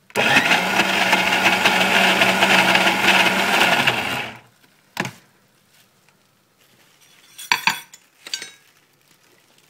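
Electric mixer grinder (mixie) running for about four seconds and then stopping: one short pulse that grinds sesame seeds into a coarse peanut chutney. A few short knocks and clinks of the steel jar follow.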